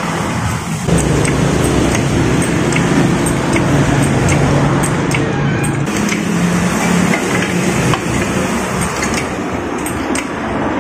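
A steady, loud mechanical hum, like an engine running, with scattered light metallic clicks from a 30 mm socket and breaker bar being worked on a nut under the rear of the van.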